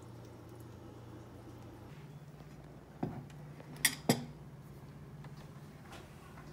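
Ceramic bowls and metal utensils clinking: three sharp knocks in the middle, the last two close together. Under them runs a steady low hum that steps up slightly in pitch about two seconds in.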